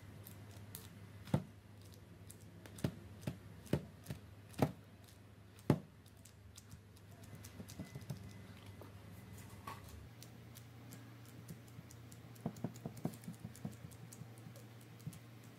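Faint, irregular sharp taps and knocks of hands working epoxy molding clay into holes in a wooden block: a few spaced taps in the first six seconds, then a quick run of smaller clicks later on. A steady low hum sits underneath.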